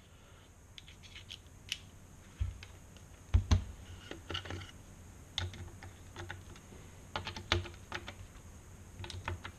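Scattered clicks and taps from handling a Wheeler torque screwdriver and a rifle in a carbon fibre stock, with a few dull knocks about two and a half and three and a half seconds in as the rifle is turned over and set down, then clicks as the Torx bit is fitted to an action screw.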